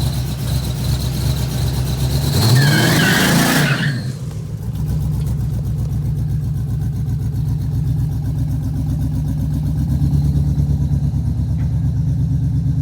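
LS V8 engine in a third-generation Pontiac Firebird idling with a fast pulsing beat. It is revved once about two seconds in, rising and then dropping back to idle.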